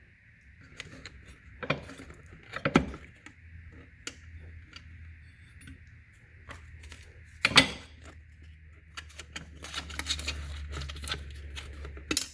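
Hand tools clicking and clinking on metal fittings while parts are unbolted from the back of a Sea-Doo Spark jet ski, with four sharper knocks spread through and a quick run of clicks near the end.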